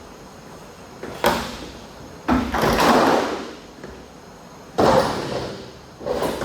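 Four loud bangs a second or so apart, the second and third each trailing off into about a second of rattling clatter.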